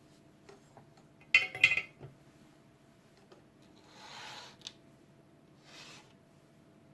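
Small parts being handled on a worktable: a quick clatter of sharp clicks, then two soft rubbing swishes.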